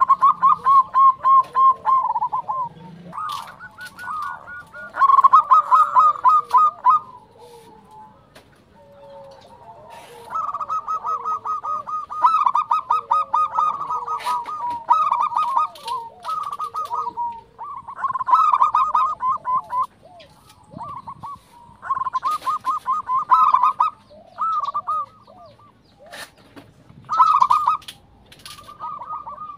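Zebra dove (perkutut) singing: about a dozen phrases of rapid staccato cooing notes, roughly ten a second, each phrase one to two seconds long with short pauses between. Fainter, lower single notes fall in some of the gaps.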